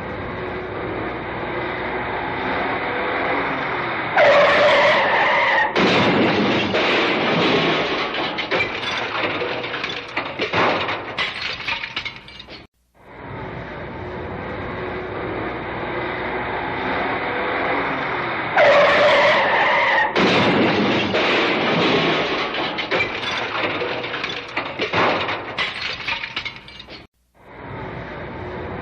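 Car crash sound effect played twice: a car runs up, its tyres screech, then it crashes with a loud impact and several seconds of scattering debris and glass. After a short silence the sequence starts again near the end.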